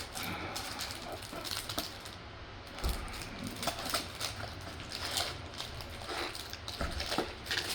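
Cardboard and paper contents of a Pokémon Elite Trainer Box being handled: light clicks, taps and rustles, with two soft thumps about three seconds in and near the end.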